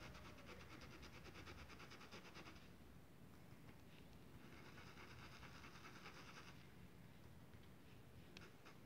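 Faint scratchy brushing of a paintbrush working diluted fabric paint into denim, in two bouts of quick strokes: one over the first two and a half seconds, another from about four and a half to six and a half seconds in.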